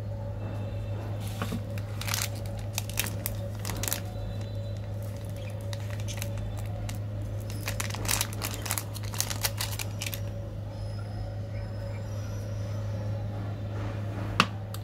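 Plastic candy wrapper crinkling as it is handled, in two spells of quick crackles, over a steady low hum. A single sharp click near the end.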